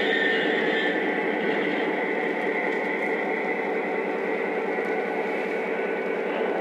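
Lionel O-gauge troop train cars rolling past on three-rail track: a steady rumble of wheels on the rails, easing off a little as the train moves on.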